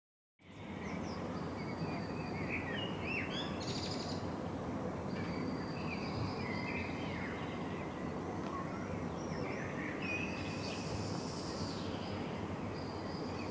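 Outdoor ambience: several birds chirping and whistling in short, varied calls over a steady low background rumble.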